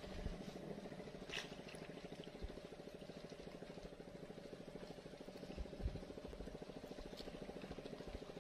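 An engine running steadily with a fast, even throb, with a few brief splashes of a hooked fish at the surface.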